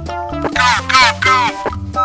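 Upbeat background music with a steady bass line, with a run of quick, warbling chirps, each falling in pitch, about half a second in and lasting about a second.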